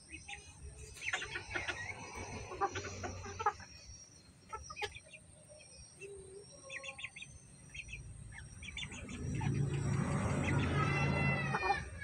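Bantam chickens clucking and pecking at feed, with scattered short calls and clicks. A louder, drawn-out call swells in the last few seconds.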